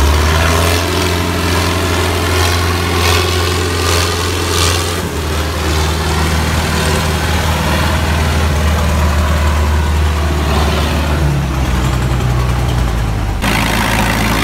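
Heavy diesel engines running steadily under load while a loaded tipper truck is towed out of mud. Near the end the sound changes suddenly to a lighter tractor engine running.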